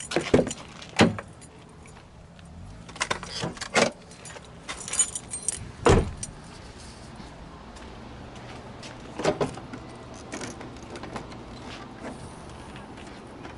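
Car keys jangling, with a series of clicks and knocks from a BMW E39 wagon's door handle, door and hood latch as the hood is popped and lifted. Two clicks come at the start, a cluster of knocks about three to four seconds in, the loudest knock about six seconds in and another about nine seconds in.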